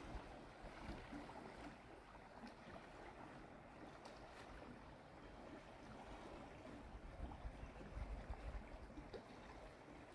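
Faint, steady rush of a fast-flowing river, with low wind rumble on the microphone that grows stronger near the end.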